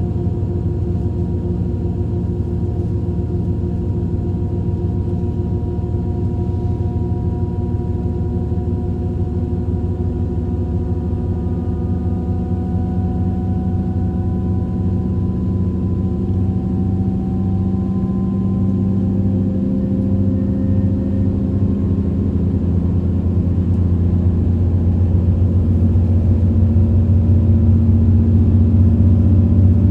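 Diesel regional train heard from inside while running. A steady low hum carries several whining tones that slowly rise in pitch and grow louder toward the end as the train picks up speed.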